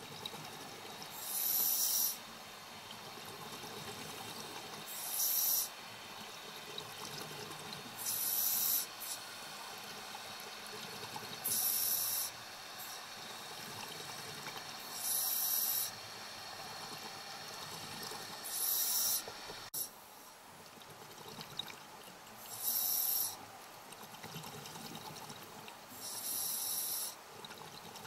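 Scuba diver breathing underwater through a regulator: a burst of exhaled bubbles every three to four seconds, eight in all, with a low steady hiss in between.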